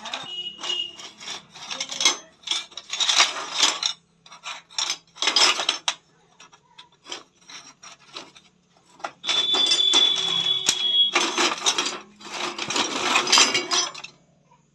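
Loose steel pieces clinking, scraping and rattling against each other as a hand digs through a pile of metal scrap, in several long rattling scrapes with single clinks between them. A high ringing note sounds for a second or two about nine seconds in.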